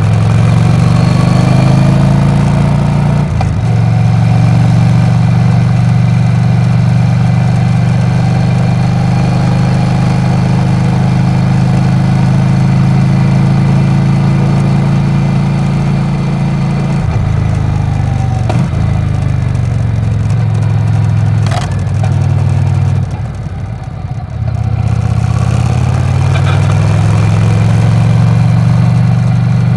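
Yamaha XV950R's air-cooled V-twin engine running steadily. About seventeen seconds in its note drops, it is quietest near twenty-four seconds, and then it picks up again.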